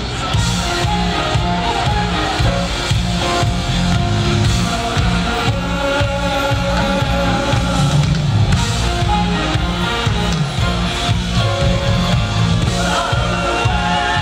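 Live R&B band playing, with bass guitar, keyboards and drums under singing voices, in a steady groove.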